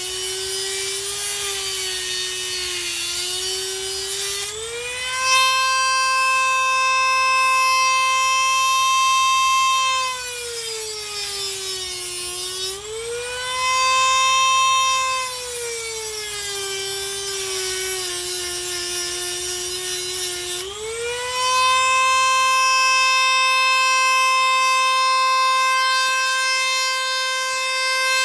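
Dremel rotary tool running at high speed and cutting, a high whine that dips in pitch and climbs back several times as the load on the bit changes.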